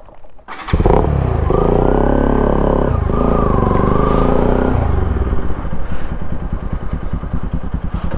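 Motorcycle engine running: after a brief dip it comes in loud about a second in, its pitch rising and falling as it is revved for a few seconds, then it settles into a steady, even low beat.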